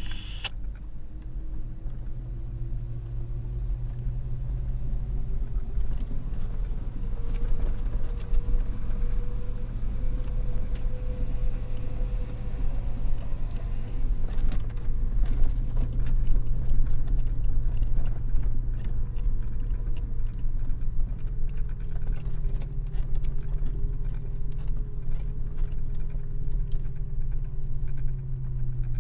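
Car driving: a steady low engine and road drone with an engine note that climbs slowly over the first ten seconds or so, then eases back down, and frequent light rattles and clicks throughout.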